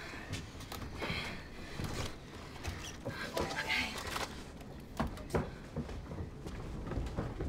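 Irregular soft knocks and taps, with faint breathy voice sounds about a second in and again near four seconds in.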